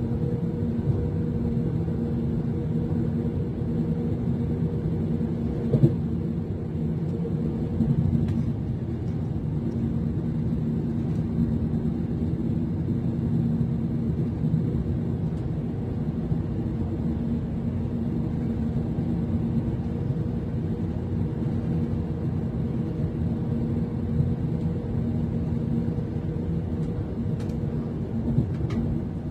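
Cabin noise inside a Class 390 Pendolino electric train: a steady low rumble with a constant hum, and a few faint knocks.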